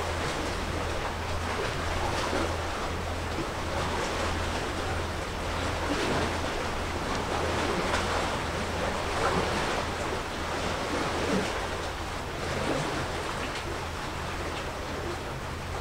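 Waves washing against the shore in a steady wash, with wind noise. A steady low hum runs underneath, and a second low tone joins it late on.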